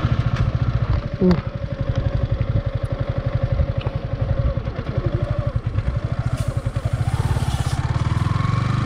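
Yamaha R15 V3's 155 cc single-cylinder engine idling with an even, rapid beat just after being started. Near the end its pitch rises slightly.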